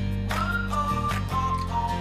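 Background music: a pop-style track with guitar, bass and a steady beat.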